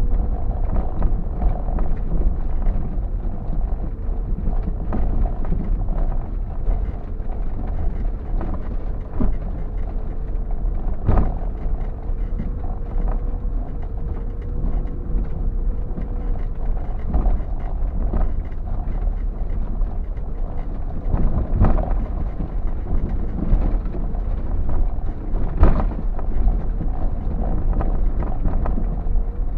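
Four-wheel-drive vehicle crawling along a rough, muddy track, heard from inside the cab: a steady engine drone with a slowly wavering tone over a heavy rumble. Several sharp knocks from the body and suspension over bumps, the loudest about eleven seconds in and twice more near the end.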